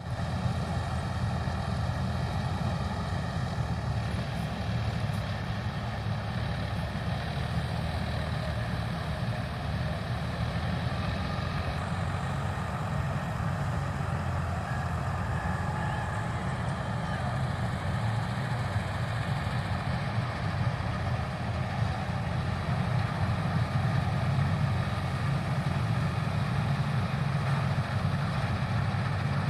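Balkar combine harvester's engine running steadily, a low continuous drone.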